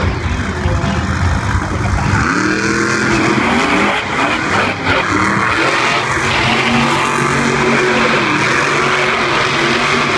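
Supercharged V8 monster truck engine, revving hard: a heavy rumble, then from about two seconds in the pitch climbs in several quick surges and holds high.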